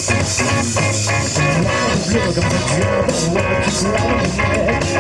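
Rock band playing live, an instrumental stretch of guitar over bass and drums with no singing.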